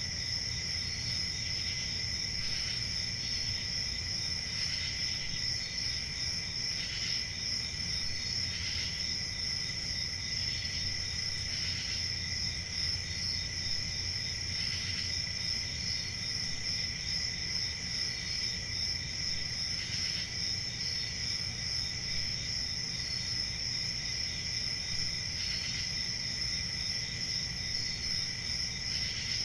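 Crickets chirping in a steady, continuous high trill, with fainter short chirps repeating about once a second and a low steady rumble underneath.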